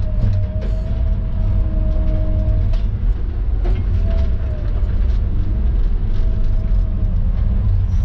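Tigercat knuckleboom log loader running under load, heard from inside the cab: a steady heavy diesel rumble with a thin whine that comes and goes as the machine works, and a few light clicks and knocks.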